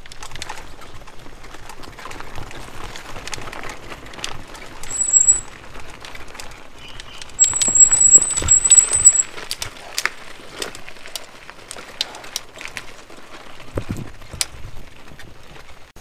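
Mountain bike riding over a gravel and sand trail, with tyre crunch and rattling knocks throughout. A high-pitched brake squeal comes briefly about five seconds in, then again louder for nearly two seconds as the bike slows.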